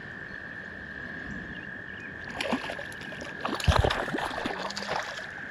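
A hooked trout being landed and handled: irregular splashes, knocks and rustles begin about two seconds in, with the loudest thump just before four seconds. A steady high whine and a low rush continue underneath.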